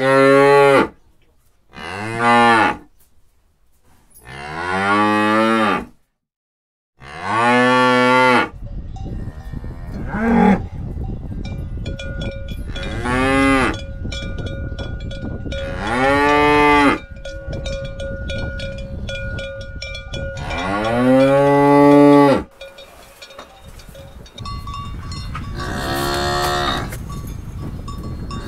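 Cows mooing: about nine long moos, one after another, several rising and then falling in pitch. From about eight seconds in, a steady outdoor background with faint ringing sits behind the calls.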